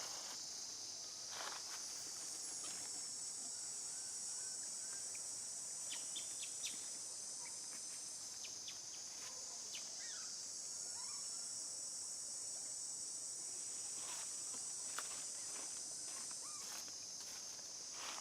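Steady, high-pitched insect chorus buzzing throughout, with a few faint clicks and short chirps mixed in.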